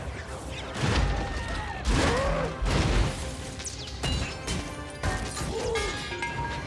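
Action-film sound mix of the Hulkbuster armour in action: three heavy metallic crashes in the first three seconds, then mechanical whirring and tones, all over music.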